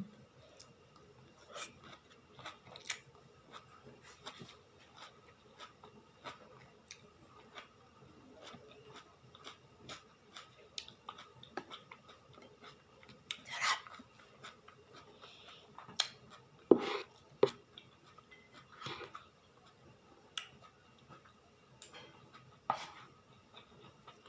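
Eating sounds: chewing, with scattered short clicks and knocks, a few louder ones from about halfway through.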